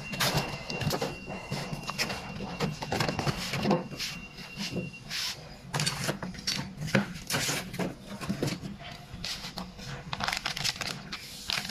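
Plastic bags crinkling and a cardboard box rustling while a spray gun and its paint cup are unpacked by hand. The rustles come in irregular bursts, with a few small knocks.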